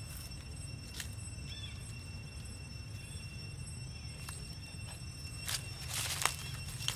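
Dry leaves rustling and crackling in short bursts, a few scattered and then several close together in the last second and a half. Under it runs a steady low rumble and a faint, steady high whine.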